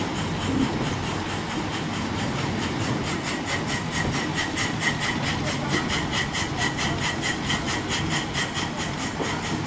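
Small steam tank locomotive working past while hauling two open carriages, its exhaust beating in a quick, even rhythm of about four to five beats a second.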